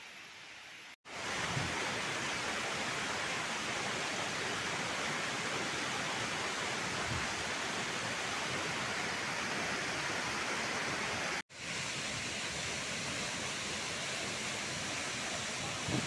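Steady rushing of a waterfall pouring into a pool. It starts abruptly about a second in and has a short break about eleven seconds in.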